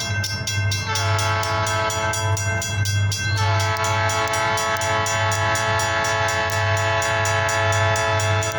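Diesel freight locomotives of the DeQueen Eastern local passing, with the air horn sounding over the low, steady throb of the engines. The horn's chord steps slightly lower about a second in and again a little after three seconds.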